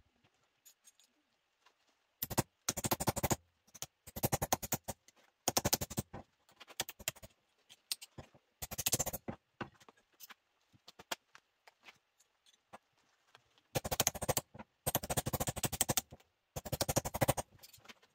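Ball-peen hammer tapping thin steel rose petals against a padded wooden stump to dish them. The taps come in short runs of rapid strikes with pauses in between.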